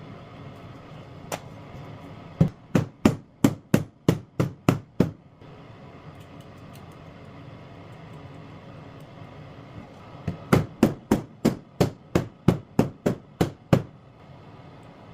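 A hammer striking in quick, even blows, about three a second. There is a single blow, then a run of about nine, a pause of some five seconds, and a second run of about eleven.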